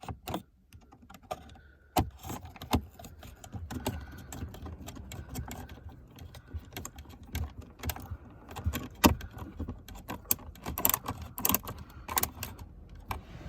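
Plastic dashboard fascia and trim being handled and pressed into place, with irregular sharp clicks and knocks of panels and retaining clips, coming thicker near the end.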